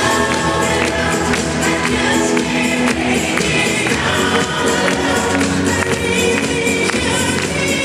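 Disco music with singing voices over a steady beat.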